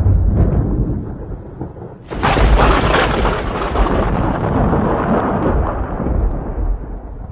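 Thunderstorm during heavy rain: a low rumble that fades, then a sudden loud thunderclap about two seconds in, dying away over several seconds.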